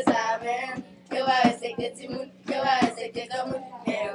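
Children singing together in short phrases with brief pauses between them.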